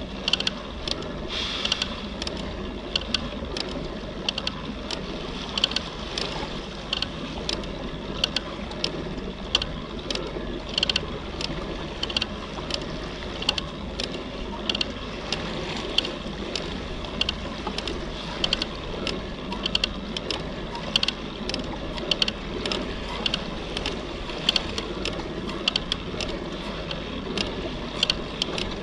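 Kayak under way on the water, with a steady rhythmic clicking, about one and a half clicks a second, over a continuous wash of water and wind noise.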